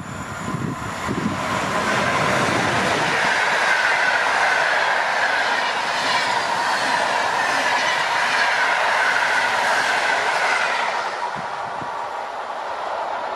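A locomotive-hauled passenger train running past close by: wheel and rail noise with a high hiss swells up over the first couple of seconds as it arrives, holds steady while the coaches pass, then eases off as the last coach goes by near the end.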